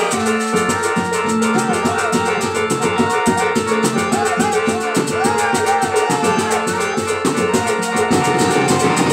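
Obrog street music: a percussion band beating drums to a fast, steady rhythm under a wavering melody line.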